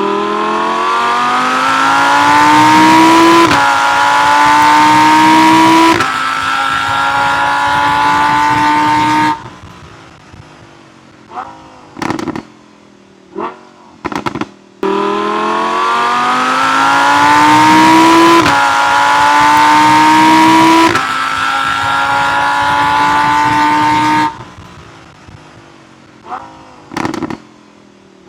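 Lamborghini Huracán's naturally aspirated 5.2-litre V10 accelerating hard on a racetrack, its pitch climbing and dropping at each of three upshifts, then lifting off with sharp exhaust pops and short throttle blips. The same run is heard twice.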